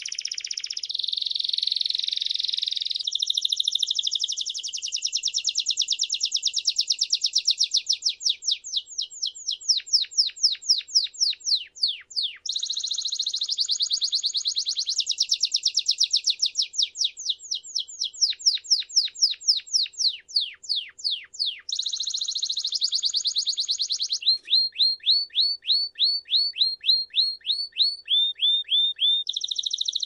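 Domestic canary (Belgian canary) singing a long unbroken song of trills and rolls that switches phrase every few seconds: buzzing rolls, quick runs of falling notes, and near the end a slower string of repeated notes.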